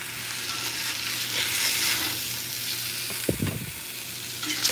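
Steak frying in coconut oil in a cast-iron skillet: a steady sizzle that swells about two seconds in. A brief low knock comes about three seconds in.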